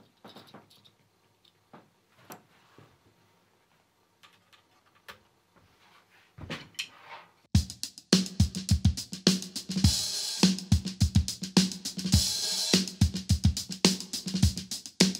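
A drum kit playing a tight funk groove with very dead, short-decaying drums: a single-headed kick drum damped by a pillow, a cloth-covered 14x5 chrome-over-brass Rogers Dynasonic snare, and 15-inch hi-hats. Only a few soft taps come in the first half, then the full groove starts about halfway through.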